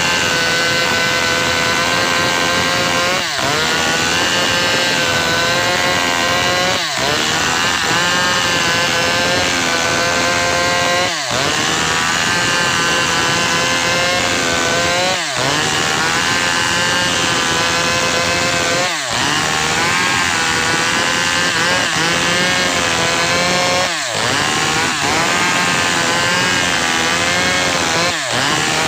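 Maestro chainsaw running at high revs while cutting gmelina wood, its pitch wavering under load and dipping briefly about every four seconds.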